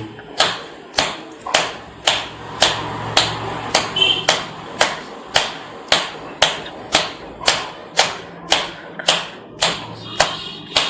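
A 30 ml medicine bottle of freshly mixed electrohomeopathic P8 dilution being succussed: knocked hard in a steady, even rhythm of about two strokes a second to potentise it.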